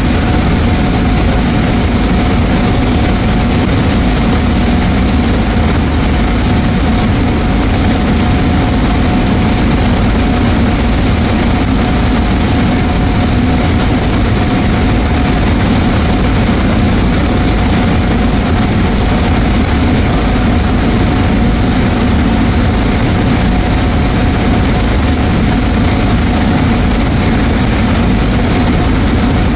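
A passenger ferry's engines running steadily under way: a loud, even low drone with a thin steady whine on top and a hiss of wind and water.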